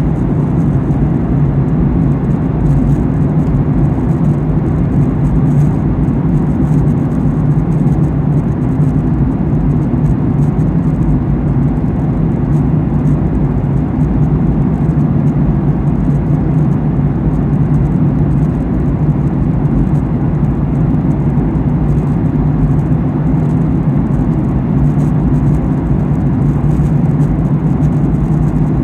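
Steady cabin noise inside a Boeing 737-800 in the climb: its engines and the airflow past the fuselage make an even drone with a constant low hum.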